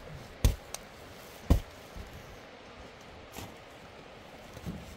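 Two heavy thuds about a second apart, then a few lighter knocks, as heavy sacks are heaved about and dropped while being unloaded from a pickup truck's bed.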